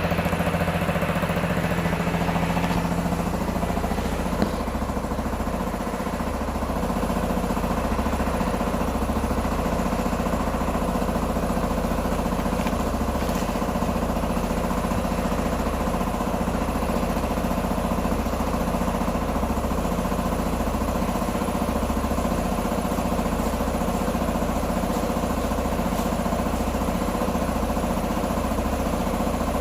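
Q2 125 motorcycle engine idling steadily, its low note shifting slightly about three seconds in, with one sharp click a little after.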